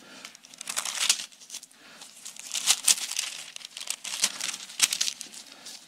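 Bible pages being leafed through: a run of irregular paper rustles and crinkles as the pages turn.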